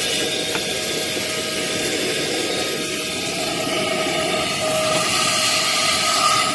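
Philips ST6101 cordless vacuum cleaner running: a steady rush of air with a motor whine that grows stronger in the second half.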